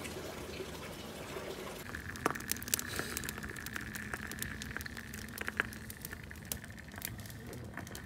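Cooking fire of paper, dry grass and sticks catching in a makeshift brick stove: sharp crackles and pops over a steady hiss, the crackling starting about two seconds in.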